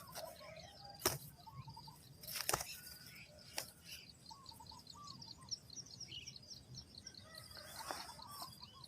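Birds calling: a fast, even run of short high chirps, with lower chirping notes in between. A few sharp knocks come in the first four seconds.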